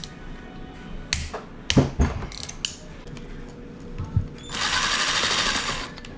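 A few metal tool clinks and knocks, then a cordless power driver spinning for about a second and a half, backing a cover bolt out of the engine case.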